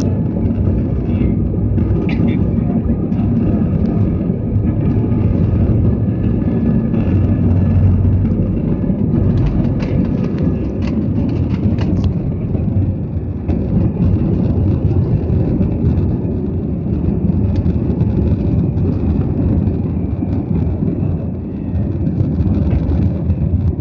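Jet airliner's engines and airflow heard from inside the passenger cabin during the takeoff run and initial climb: a loud, steady, deep rumble.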